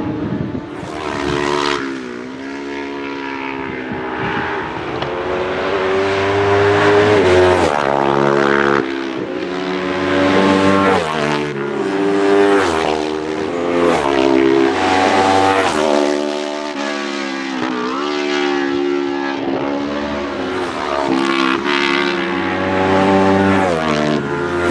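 Road-racing motorcycles passing one after another at speed, engines revving hard. The pitch climbs and then drops sharply, again and again, as the riders change up through the gears.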